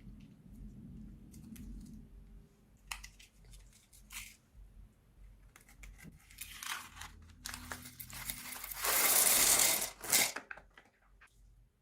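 Plastic piping bag crinkling and tearing as it is handled, with scattered small clicks at first and a longer, louder rustling stretch a little over two-thirds of the way through.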